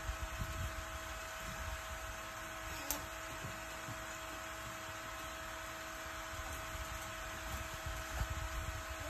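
Battery-powered bubble machine running: the steady hum of its small fan motor, over a low irregular rumble, with one sharp click about three seconds in.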